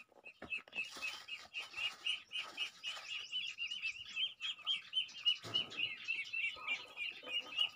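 A brood of Muscovy ducklings peeping continuously, a rapid run of short, high chirps, several a second.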